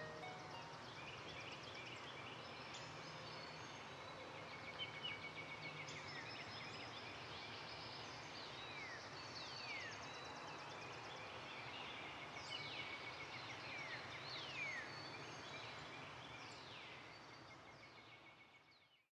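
Faint outdoor ambience of birds singing and calling, with many quick downward-sliding whistles and chirps over a steady background hiss; it fades out near the end.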